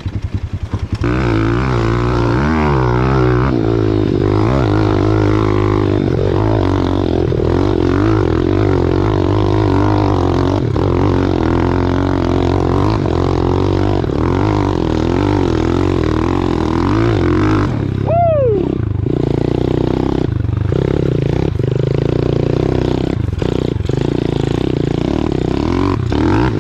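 Pit bike's single-cylinder four-stroke engine running hard under load up a grassy hill climb, its revs wavering up and down. About two-thirds of the way through comes a short falling whine.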